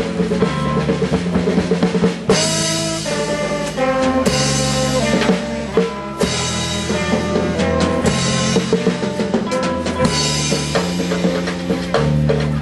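Live band playing: saxophone over electric bass and a drum kit, with steady kick and cymbals and a bass line moving between notes.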